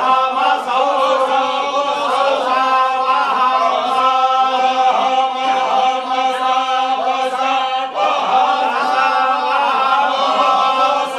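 A group of men chanting a religious text together in unison, the phrases broken by brief pauses about a second in and again near the end.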